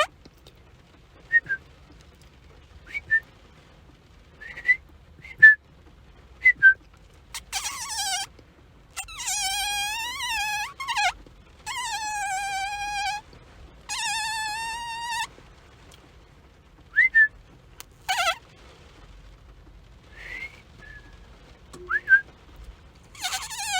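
High-pitched whistle-like sound effects: a few short chirps, then several longer squeals one to two seconds each whose pitch wavers up and down, then more short chirps and quick upward glides.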